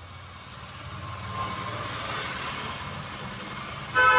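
Vehicle noise that builds steadily, then a loud horn honk starting suddenly near the end.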